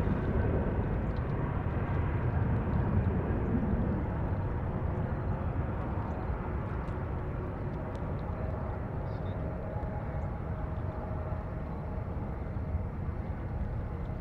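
Airbus A330 airliner's twin jet engines on landing: a steady jet rumble with a faint whine that slowly grows quieter as the aircraft touches down and rolls out.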